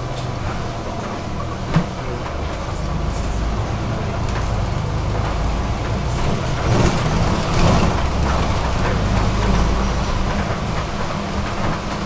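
City bus engine running and road noise, heard from inside the passenger cabin, the engine's pitch shifting as it drives. A sharp click comes a little under two seconds in, and the noise grows louder for a stretch about seven to eight seconds in.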